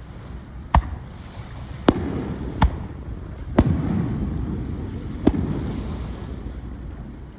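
Fireworks bursting: five sharp bangs spread over about five seconds, the bigger ones trailing off in a rumbling echo.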